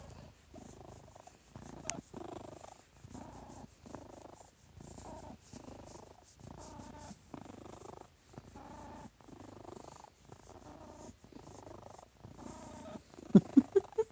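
Domestic cat purring close to the microphone, a funny-sounding purr that pulses steadily about three times every two seconds as it breathes in and out. A few short, louder sounds break in near the end.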